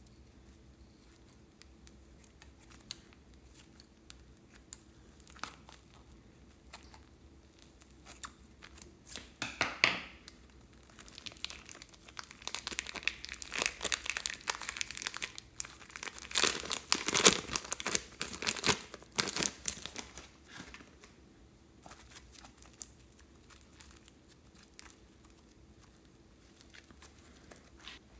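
Plastic piping bag crinkling and tearing as it is peeled off a mass of soft slime. The crackle is loudest through the middle, with faint scattered clicks of handling before and after.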